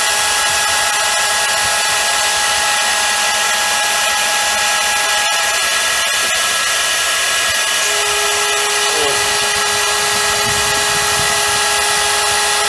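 High-speed TeknoMotor CNC milling spindle driving a 4 mm AluCut endmill through aluminium, cutting dry: a steady high-pitched whine over the hiss of the cut and flying chips. The sound breaks off for an instant about five seconds in, and a second, lower steady tone joins the whine near the end.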